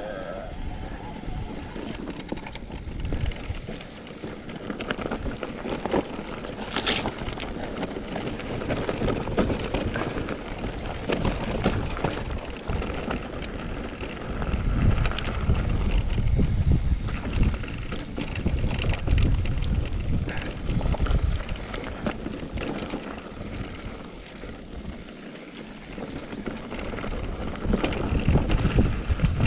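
Electric mountain bike ridden down a rough trail: wind buffets the microphone and the bike rattles and knocks over rocky ground. The rumble swells louder about halfway through and again near the end.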